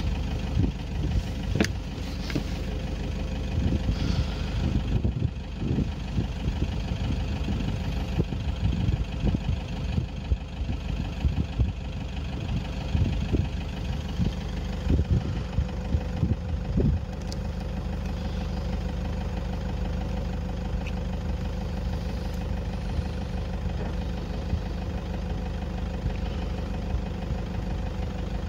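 Vehicle engine idling with a steady low hum. Irregular low thumps come and go over the first seventeen seconds or so, then only the hum remains.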